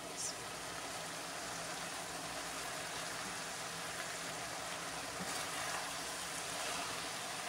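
Minced meat and soaked chana dal sizzling steadily in a pan as the last of their cooking water cooks off.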